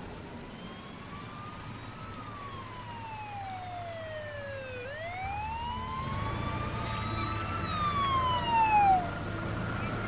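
Police car siren in a slow wail, its pitch falling, rising again and falling once more, over a low rumble. It grows louder toward the end as it approaches.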